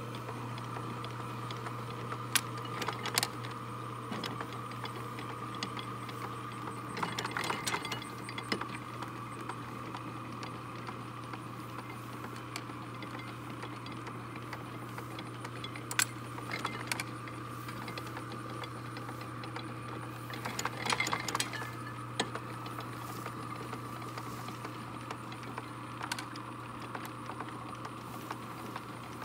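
Antique Deering reaper's rake reel and gearing being turned by a small electric motor: a steady motor hum under irregular clanks and clicks of the mechanism, with rattling spells about 7 seconds and 21 seconds in.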